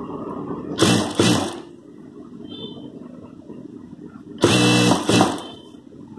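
Industrial lockstitch sewing machine stitching the neckline edge of a blouse in two short runs, one about a second in and another about four and a half seconds in, stopping between them while the fabric is guided round the curve.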